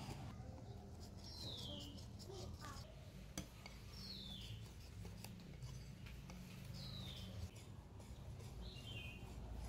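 A bird gives a short call falling in pitch about every two to three seconds, over a steady low hum. Faint clicks of a wire whisk against a glass bowl come and go, with one sharper tap a little past the middle.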